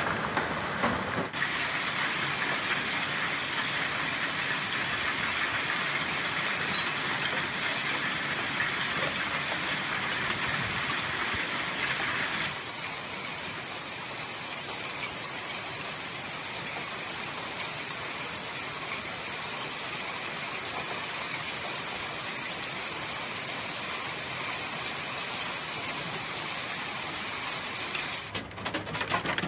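Hailstorm: a dense, steady hiss of hailstones and rain pelting the ground. The sound changes abruptly about a second in, again after about twelve seconds, and near the end.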